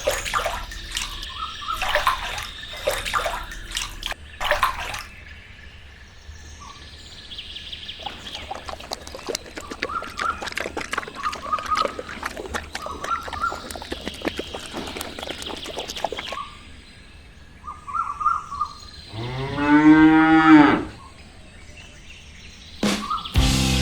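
A single long cow moo about nineteen seconds in, the loudest sound, with a pitch that dips and rises again. Before it, sharp clicks and taps for the first few seconds, then faint short chirps.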